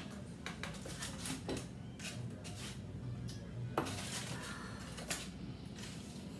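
Metal spoon clinking and scraping against dishes and a container while spooning chopped chicken onto a pizza, a string of short clicks with one sharper clack a little past halfway.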